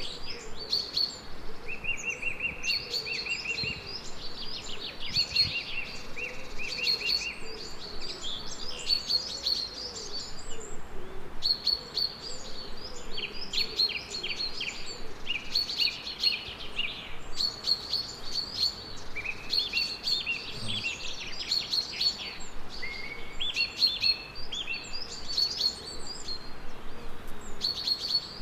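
Songbirds singing: short phrases of rapid chirps and trills repeating one after another, over a faint steady hiss.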